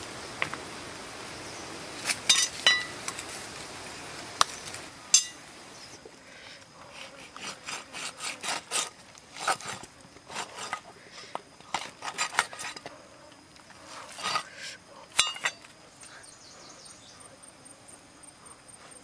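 Clicks, snaps and sticky crackling as hands pull apart grilled beef ribs and work a wooden skewer out of the meat, coming thick and fast through the middle. An insect trills faintly near the end.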